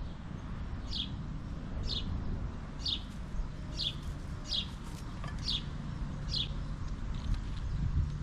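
A songbird repeating a short, high, downward-slurred call about once a second, seven or eight times, over a steady low background rumble.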